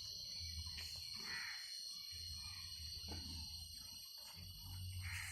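Pigs grunting, with a few short calls about a second in and near the end, over a steady high-pitched whine.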